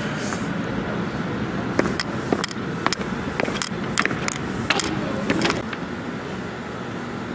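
Footsteps going down a flight of stairs in sneakers: a run of sharp taps, about two a second, from about two seconds in, stopping just before six seconds, over a steady low hum.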